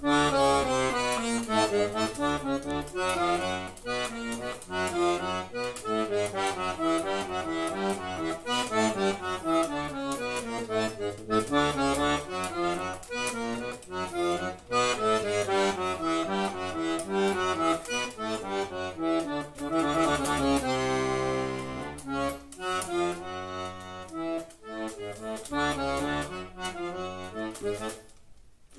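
Scala piano accordion played solo: a fast run of many notes over a bass accompaniment, with one long held chord about three-quarters of the way through, breaking off briefly near the end.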